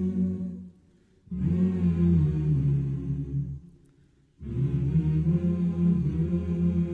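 Background music of choir voices singing long held chords, in phrases of about three seconds with short pauses between them.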